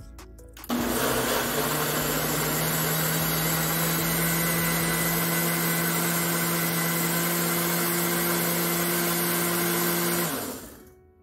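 Ninja countertop blender starting abruptly and running at high speed, puréeing onion, scallion, tomato and liquid into a smooth sauce: a loud, steady whirring with a motor hum. Near the end it winds down and stops.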